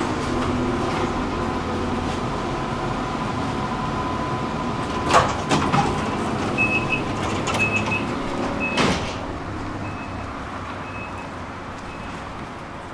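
Interior of a Solaris Tramino low-floor tram running with a steady motor whine and rolling noise. Several sharp clunks come partway through, then short high beeps repeat while the running noise fades as the tram slows.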